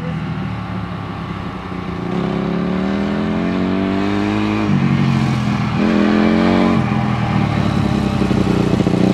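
Honda CRF250R dirt bike's four-stroke single-cylinder engine pulling a rider. Its pitch climbs under throttle, drops sharply a little before halfway through, then climbs and drops again twice.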